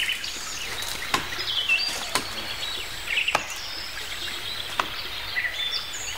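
A tree trunk being chopped with a hand blade: sharp single blows, roughly one a second. Forest birds chirp throughout.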